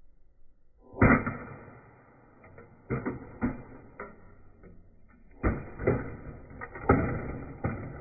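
Wltoys WL 16800 RC metal excavator's bucket striking and smashing toys: a run of about eight hard knocks and crashes with a brief ringing after each, starting about a second in, the first the loudest.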